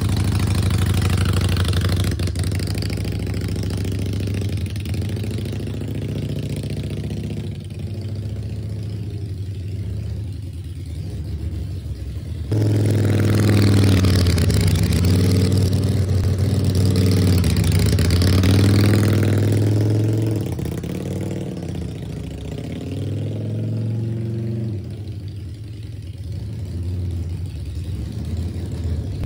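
Harley-Davidson Sportster Iron 883's air-cooled V-twin running steadily through freshly wrapped straight pipes. It gets suddenly louder about halfway through, then drops back as the bike is ridden away.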